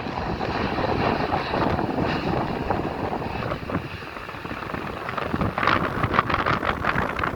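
Boeing 777 Freighter jet engines running, a steady rushing noise with a faint high whine, heavily mixed with wind buffeting the microphone, which gusts and crackles in the second half.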